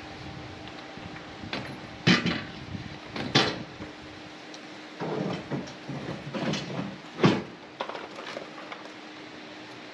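Irregular clanks and knocks of tie-down straps and hardware as a motorcycle is secured for transport, with sharp knocks about two, three and a half and seven seconds in, the last the loudest, and a cluster of rattles between. A faint steady hum runs underneath.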